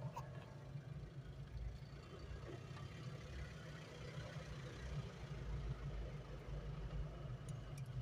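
A vehicle engine idling steadily, a low rumble, with a few faint clicks near the end.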